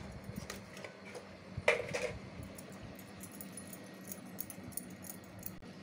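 Stainless-steel pot and lid being handled, with one louder metal clink a little under two seconds in, then light clicks and taps.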